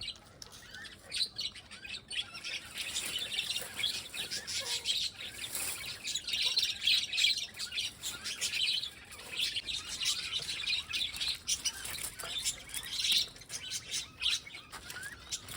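Lovebirds chirping, a dense run of short, high calls.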